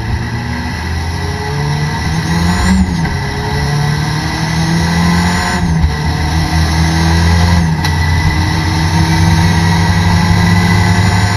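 Toyota Corolla race car's engine from inside the cabin, running hard under acceleration. The engine note breaks briefly about 3, 6 and 8 seconds in, as with gear changes.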